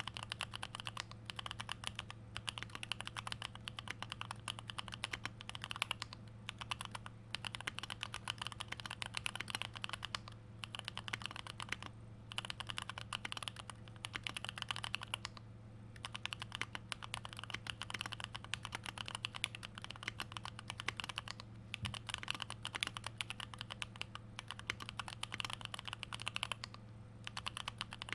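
Custom 75% mechanical keyboard with lubed old Holy Panda tactile switches, a plastic plate and GMK stabilizers being typed on in fast continuous runs of key clacks, broken by short pauses every few seconds. A steady low hum sits underneath.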